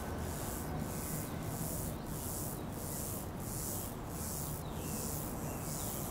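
Outdoor daytime ambience: a high hiss pulsing evenly about twice a second, with faint bird chirps and a low steady rumble underneath.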